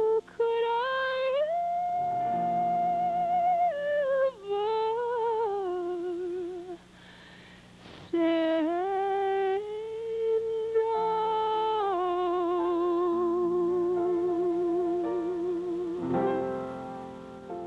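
A woman's solo singing voice holds long notes with vibrato over instrumental accompaniment. The voice drops out briefly about seven seconds in and comes back. Near the end a final chord sounds and fades away.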